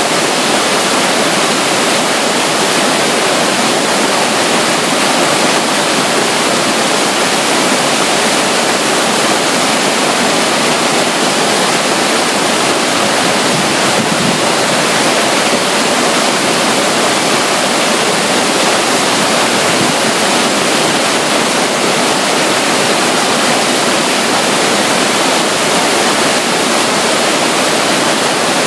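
Small stream of water running and splashing beside a river near a waterfall: a loud, steady rush.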